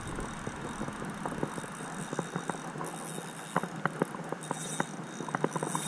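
Ultralight spinning reel clicking irregularly while a hooked smallmouth bass fights and pulls drag, over the steady rush of creek water.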